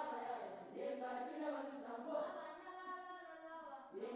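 A choir of voices singing together, held notes blending in a slow chant-like line, fairly faint; it breaks off briefly near the end and starts again.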